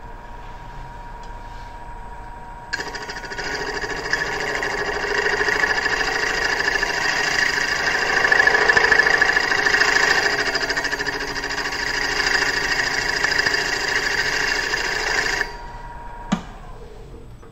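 A hand tool cutting the edge of an aluminum disc spinning on a wood lathe, trimming it round. It makes a loud, harsh scraping with a ringing tone that starts about three seconds in and cuts off abruptly near the end. A thin steady whine runs underneath, and a single click follows shortly after the cut stops.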